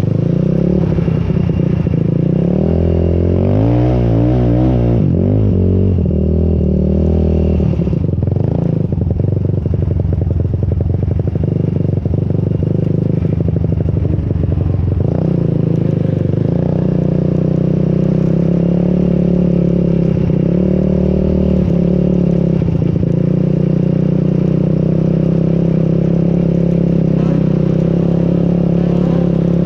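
Off-road vehicle's engine running under throttle across sand dunes, mostly holding a steady pitch, with the revs wavering up and down between about three and five seconds in.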